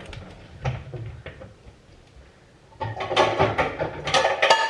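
A few light knocks, then about three seconds in a burst of kitchen clatter: metal pots and pans knocking together and ringing as they are handled.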